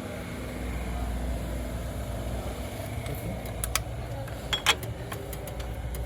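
Car engine idling with a steady low rumble. A few sharp metallic clicks come about three and a half to five seconds in.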